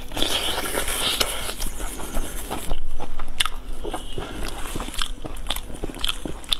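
A person biting and chewing pieces of braised meat, with wet mouth sounds and a string of sharp clicks and smacks.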